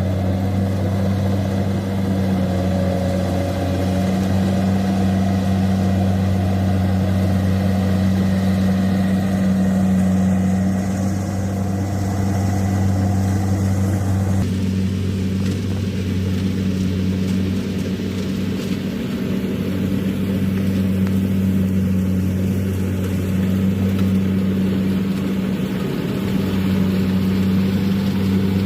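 Kubota DC-93 combine harvester's diesel engine running steadily under load in a rice field. About halfway through, the higher noise above the engine hum drops off abruptly while the engine keeps running.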